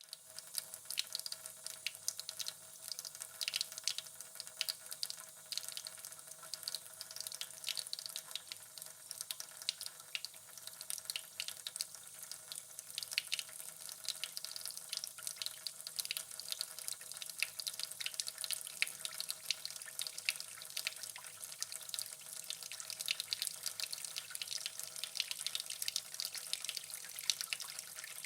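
Water dripping in quick, irregular drops, many small splashes a second without pause.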